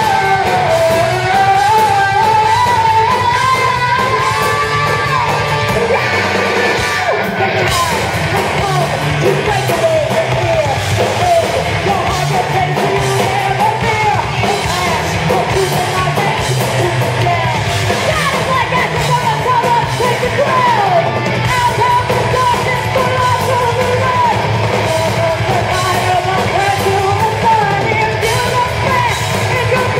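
Heavy metal band playing live, with a high, sustained lead vocal over electric guitars and a dense band sound.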